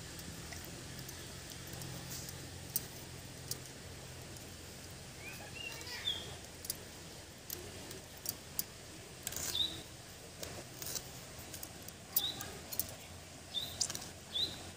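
Scattered sharp clicks and scrapes of small fish being cleaned by hand against the blade of a boti. Short rising bird chirps come several times in the second half.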